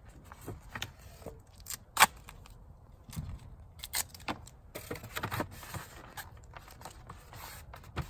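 Styrofoam insulation board being handled and fitted against a beehive box: scattered light scrapes and taps, the sharpest one about two seconds in.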